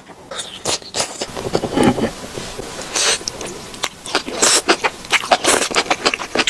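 Close-miked eating of spicy enoki mushrooms in chili oil: irregular wet slurps and chewing clicks, with several louder slurps in the second half.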